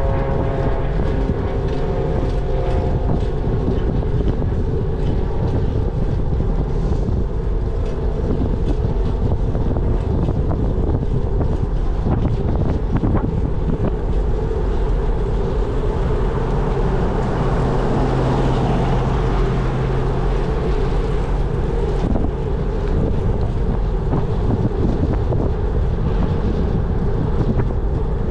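Wind buffeting the microphone while riding, a steady low rumble. A stack of falling tones fades out in the first few seconds.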